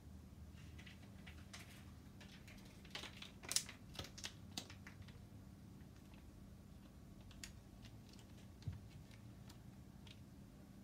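Near-quiet room with scattered faint clicks and taps, bunched together about three to four and a half seconds in, with a couple of single ticks later.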